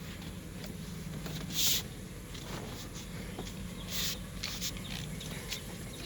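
SUV engine idling with a steady low hum, broken twice by a short hiss and a few light clicks.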